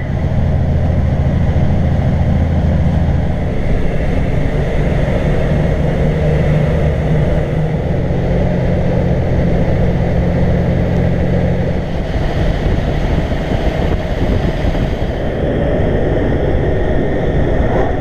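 Kenworth truck's diesel engine heard inside the cab while driving, a loud steady low drone with road noise; the deep engine hum eases about twelve seconds in.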